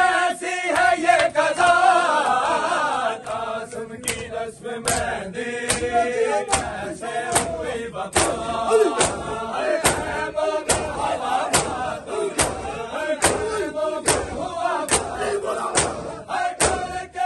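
A crowd of men chanting a noha in unison. From about four seconds in, a steady beat of bare hands slapping bare chests (matam) joins the chant, about three slaps every two seconds.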